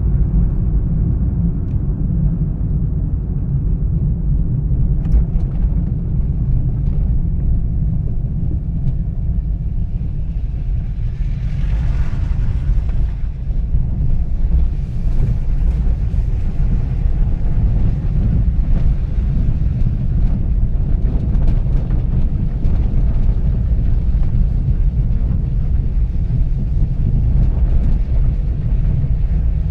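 Car driving, heard from inside the cabin: a steady low rumble of engine and tyre noise, the tyres running on a dirt track for much of it. A brief hiss rises over the rumble about twelve seconds in.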